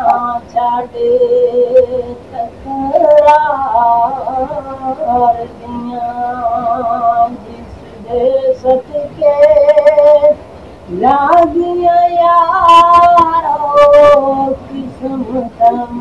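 A man's high voice sings a naat, an Urdu/Punjabi devotional poem in praise of the Prophet, in long held, wavering melodic phrases with short breaks between lines.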